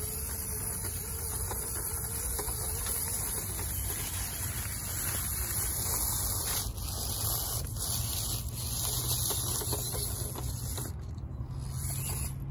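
Axial SCX24 mini RC crawler's small brushed electric motor and gears running with a steady whine as it drives over leaf litter and stones, with a constant hiss behind it.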